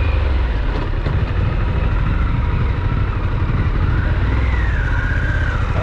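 Harley-Davidson Pan America's Revolution Max 1250 V-twin engine running as the motorcycle is ridden off-road, a steady low rumble.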